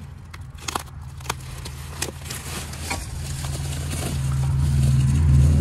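Plastic wrapping and bubble wrap crinkling, with a few sharp crackles in the first two seconds as the packaging is pulled open. A low engine hum of a vehicle grows steadily louder from about halfway through and is the loudest sound by the end.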